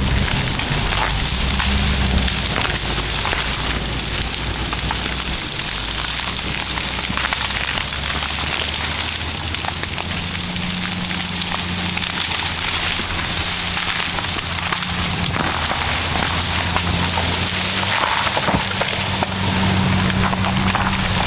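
Caterpillar bulldozer diesel engines running under load while the anchor chain drags through scrub, with a dense, continuous crackle of branches and brush snapping and splintering.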